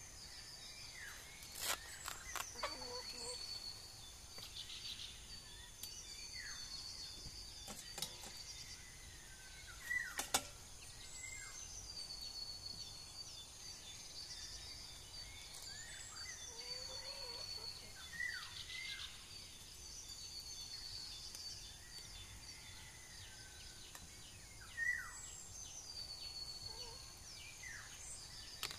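Birds chirping in short, falling calls every few seconds over a steady high-pitched outdoor hum, with a few sharp clicks.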